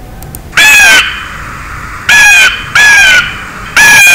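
Bird-call sound effect: four loud, harsh caws, each under half a second, with the middle two close together.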